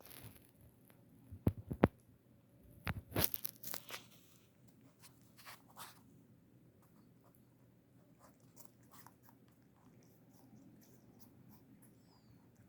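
Rabbit crunching food. Sharp, loud crunches come in the first four seconds, then only faint small clicks of chewing.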